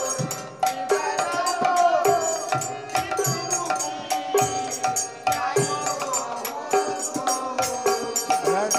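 Instrumental interlude of a Bengali kirtan: a harmonium plays a melody in held notes that change about once a second, over irregular hand-struck strokes on a khol drum.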